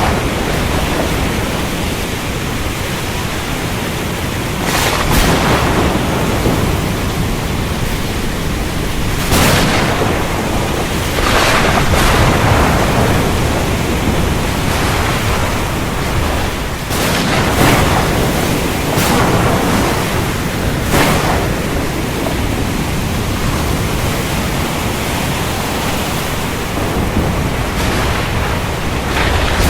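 Heavy rain hissing steadily, with repeated short cracks of thunder breaking through it every few seconds.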